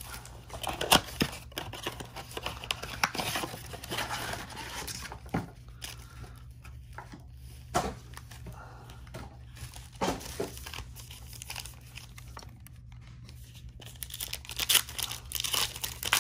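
Handling and opening a cardboard trading-card blaster box and its foil-wrapped packs: scattered rustling, crinkling and tearing, louder and busier near the end as a foil pack is ripped open.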